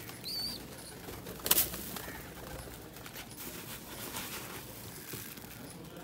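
Domestic pigeons flapping their wings as they flock down onto scattered grain, with one sharp wing clap about a second and a half in and a few lighter taps. A short high chirp sounds near the start.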